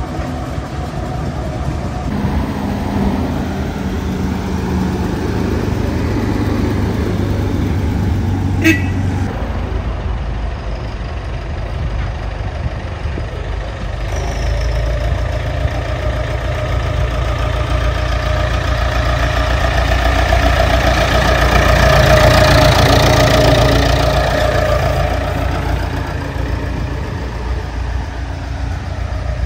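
Vintage vehicles on a road run: a steam traction engine towing a trailer rumbles along, with one sharp click about nine seconds in. Then a vintage tractor towing a living van approaches, its engine growing louder to a peak about two thirds of the way through and fading as it passes.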